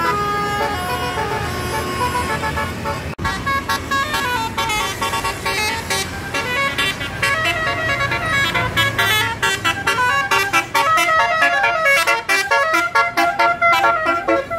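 Tour bus's telolet musical horn playing a tune: held notes at first, a brief cut-out about three seconds in, then quick runs of short, stepping notes.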